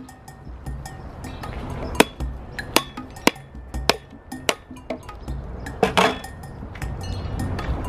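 Machete striking a whole coconut's hard shell in a series of sharp knocks, about one every half second, as the shell is cracked open.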